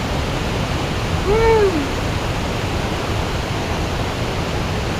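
Steady rush of a waterfall, an even noise with no break. About a second and a half in, a single short rising-then-falling call sounds over it.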